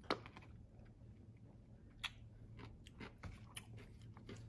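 A person biting into a whole sour pickle, a Van Holten's Sour Sis, with a sharp crunch at the first bite, then chewing it with crisp crunches that come thicker in the second half.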